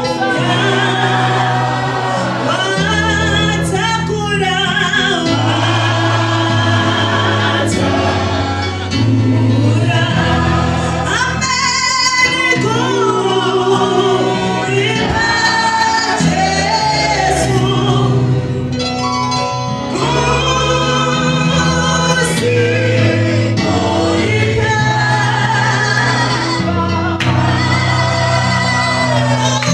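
Live gospel worship song: a woman's lead voice on a microphone with backing singers, over an accompaniment of long held bass notes that change every second or two.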